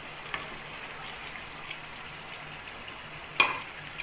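Masala gravy sizzling in a frying pan as beef koftas are added, with a small click early and one sharp knock against the pan about three and a half seconds in.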